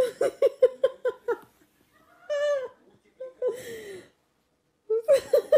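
Tabby cat calling in a run of quick, stuttering cries. A longer call comes about two seconds in and a falling, breathy cry a second later. Another run of quick cries starts near the end.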